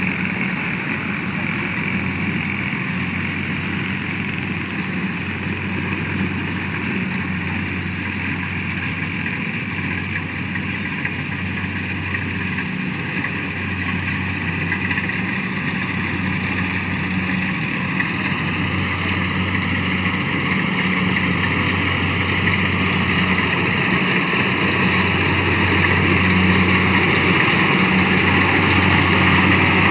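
Engine of a heavy rice-harvesting machine running steadily, growing louder toward the end.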